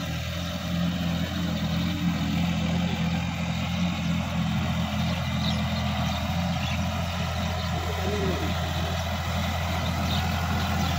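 Sonalika DI-50 RX tractor's diesel engine running steadily under load while it pulls a tillage implement through a muddy field, a low even drone.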